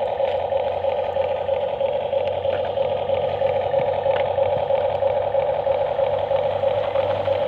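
Small motor of a radio-controlled excavator running with a steady whine. A low hum comes in shortly after the start.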